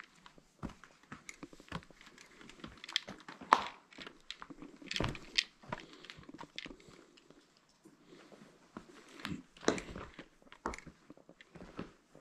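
Footsteps crunching and scraping over loose slate rubble, an irregular run of crunches with a few louder steps.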